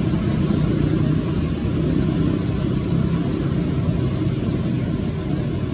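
Steady low rumble of outdoor background noise, with a constant high hiss above it.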